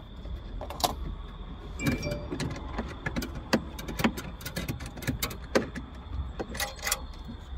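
Irregular metallic clicks and light knocks from a socket wrench working the screws that hold a car's factory head unit in the dashboard, over a steady low hum.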